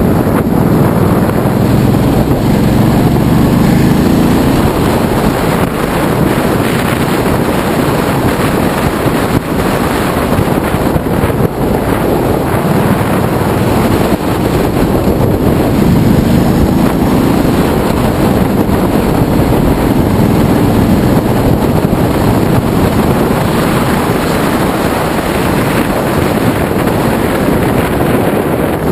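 Wind rushing over the microphone of a camera on a moving motorcycle, with the Ducati Multistrada's L-twin engine running underneath. The sound is loud and steady, with a low, rumbling rush and no sharp events.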